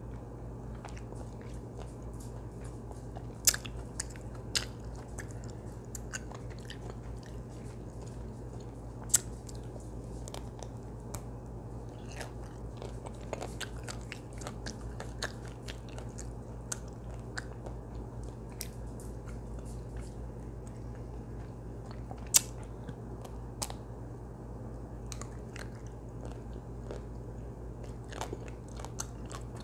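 Close-up eating of a chocolate-coated ice cream bar: biting and chewing, with sharp cracks of the chocolate shell at scattered moments, the loudest about three and a half, nine and twenty-two seconds in. A steady low hum runs underneath.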